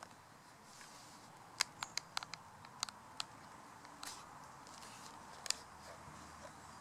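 Faint, sharp clicks and taps from a leather knife sheath being handled, with its brass ring and leather dangler moving, as the bushcraft knife is worked in the sheath. There is a quick run of clicks about a second and a half in, then two single ones spaced out.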